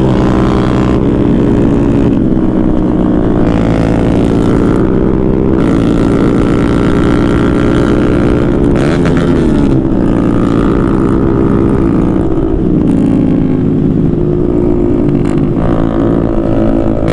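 Motorcycle engine running hard at full throttle, a loud steady drone whose pitch shifts now and then with throttle and gear changes.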